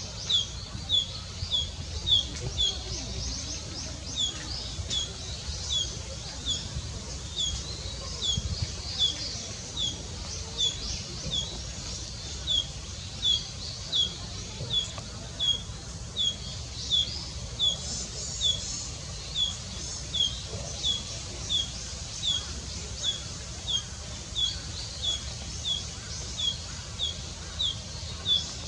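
Small songbirds singing: one bird repeats a short, high, downward-sliding note about three times every two seconds, while other birds chirp faintly and more busily above it, over a low steady rumble.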